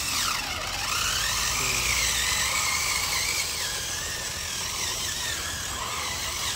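Electric motor and gearbox of a radio-controlled truck whining as it drives through mud. The pitch dives sharply about half a second in, then rises and wavers up and down with the throttle.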